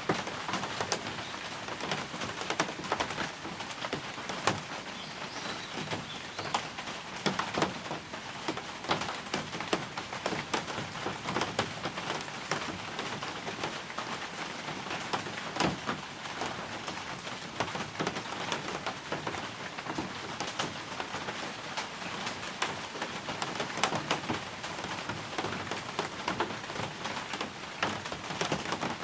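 Steady rain falling, with many separate drops ticking and splattering on hard surfaces close by.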